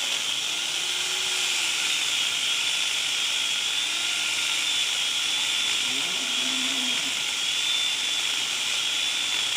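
Angle grinder fitted with a chainsaw attachment running at steady speed, giving a continuous high whine over a hiss, with no change in load.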